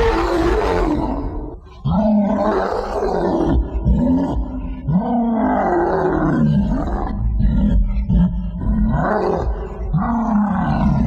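King Kong roar sound effects from the 1986 King Kong Encounter ride. One long roar dies away just before two seconds in, then comes a string of short roars that each rise and fall in pitch, about one a second, over a deep rumble.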